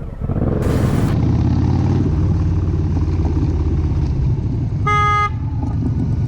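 Vehicle engine running steadily in traffic, with one short horn honk about five seconds in and a brief rush of noise about a second in.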